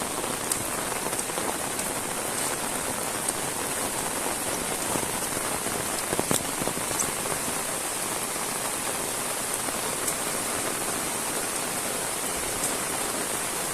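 Heavy rain falling steadily, a dense hiss with many individual drops ticking sharply close by and one louder tap about six seconds in.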